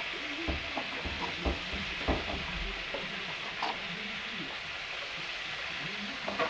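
Kitchen knife knocking on a plastic cutting board while dicing red bell pepper: a few irregular knocks, the loudest about two seconds in, over a steady hiss.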